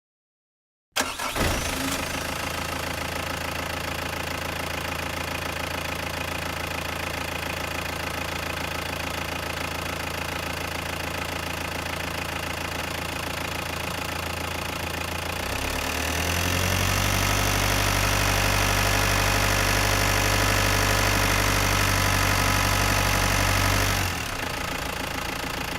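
Renault Master II van's diesel engine starting about a second in and settling into a steady idle. About sixteen seconds in the engine speed rises and holds higher for several seconds, then drops back to idle near the end.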